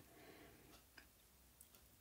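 Near silence: room tone with a faint click about a second in.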